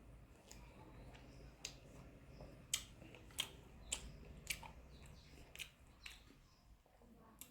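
Someone eating chicken and rice close to the microphone: wet mouth clicks and smacks while chewing, about a dozen short sharp ones at irregular intervals over a low steady hum.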